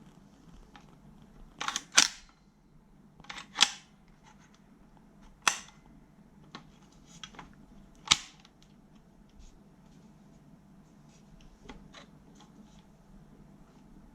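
Sharp mechanical clicks and clacks from an airsoft rifle being handled, with four loud ones about two, three and a half, five and a half and eight seconds in, the first two doubled, and lighter ticks between.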